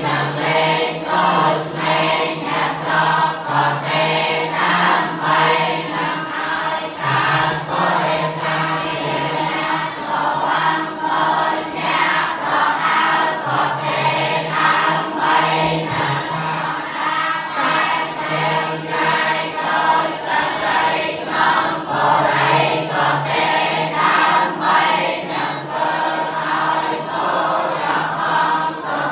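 A large group of young novice monks' voices reciting a chant together, in unison on a shared pitch that steps up and down.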